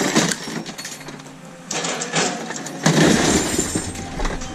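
Scrap crashing and clattering as pieces are thrown or dropped out of a van onto a pile: a series of crashes, the loudest about three seconds in.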